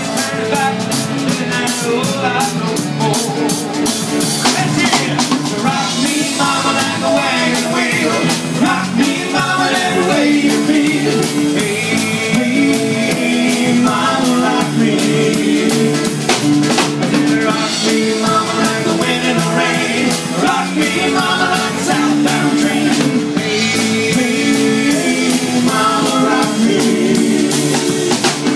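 Live rock band playing through a PA: drum kit keeping a steady beat under keyboard, guitar and saxophone.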